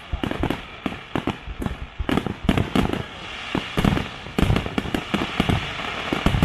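Aerial fireworks going off in a rapid, irregular barrage, several sharp bangs a second, with a crackling hiss between them that grows denser in the second half.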